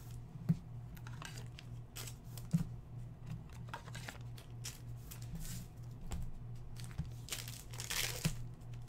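Foil trading-card pack being handled, torn open and crinkled, with scattered quiet rustles and clicks of cards being handled and a denser crinkling near the end. A faint steady low hum sits underneath.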